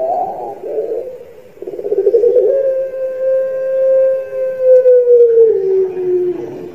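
Barbary dove (Indonesian puter) cooing: two short rolling coos, then one long drawn-out note of about four seconds that sinks slightly in pitch near the end.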